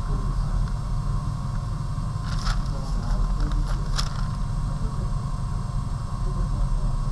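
A steady low background hum runs throughout. Tracing paper rustles briefly twice, at about two and a half and four seconds in, as the sheet is lifted and laid back over the printed photo.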